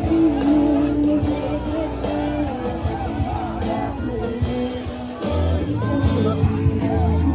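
Live rock band playing amplified through loudspeakers, with a singing voice and a crowd shouting; a heavy bass comes in about five seconds in.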